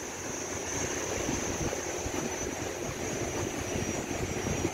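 Gusty wind buffeting the microphone, an uneven low rumble over a steady high-pitched hiss.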